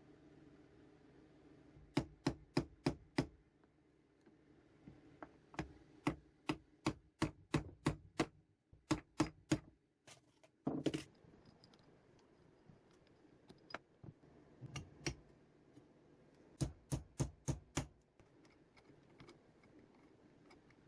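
Bursts of sharp metallic clicks and taps in quick series, about three or four a second, with a brief louder metal rattle midway: small metal tool and vise parts being handled and worked during reassembly.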